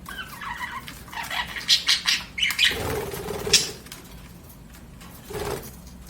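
Budgerigars chirping and chattering in quick clusters of short, high notes, with a louder, noisier burst about three seconds in and a shorter one near the end.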